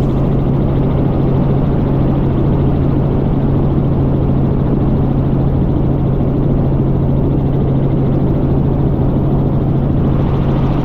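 Light helicopter in cruise flight, heard from inside the cabin: a steady, loud drone of engine and rotor with a strong low hum.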